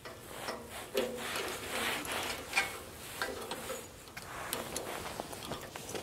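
Handling noise from work on the sawmill's lift-cable fittings: irregular rubbing and scraping of hands and clothing, with a few sharp metallic clicks.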